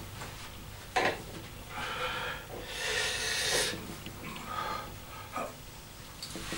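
A man breathing hard, with long forceful exhalations, as he lifts a barbell into a curl at the start of a set; a sharp click about a second in.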